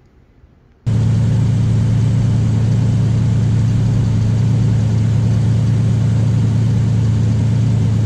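Ford Ranger pickup's engine idling steadily with the hood open, cutting in suddenly about a second in.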